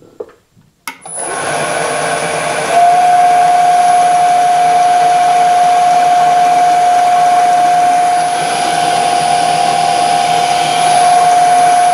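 Milling machine spindle started with a click about a second in, spinning up an end mill and then running steadily with a high, even whine from about three seconds in, as the cutter is brought to the vise jaw to touch off.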